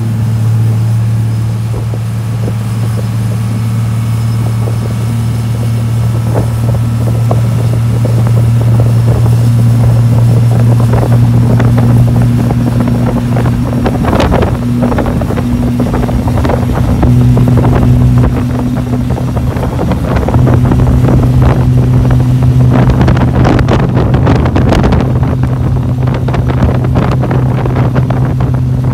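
Speedboat's inboard engine running steadily at speed, a low even drone, under wind noise on the microphone and the rush of water. Rough bursts of wind and spray come and go from about the middle on and are heaviest a little before the end.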